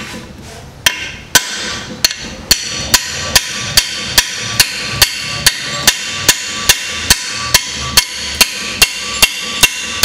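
A hammer striking an open-end wrench hooked into a rusted freeze plug in a Chevrolet Corsa GSI 1.6 16v engine block. The blows start about a second in and come steadily at about two and a half a second, each with a metallic ring. The rust-seized plug is tearing rather than coming out.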